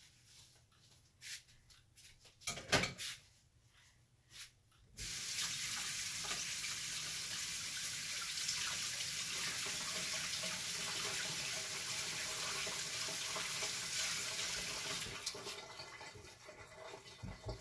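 A few clicks and knocks, then a kitchen tap turned on about five seconds in, with water running steadily into the sink for about ten seconds before it tails off.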